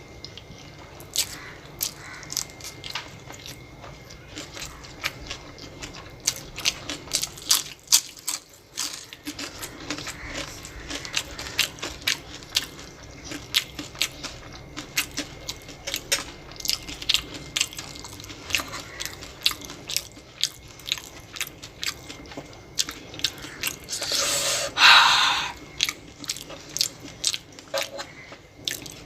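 Close-miked eating: a person chewing and crunching food, with a steady run of sharp crunches and mouth clicks. One louder, longer crunching burst comes near the end.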